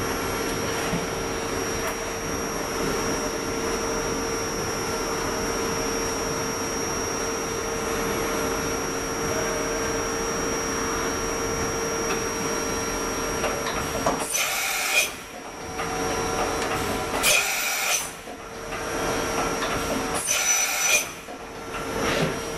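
Hardinge Bridgeport VMC 760 XP3 vertical machining centre running with a steady hum and a constant whine. In the second half come three short, loud bursts of noise about three seconds apart.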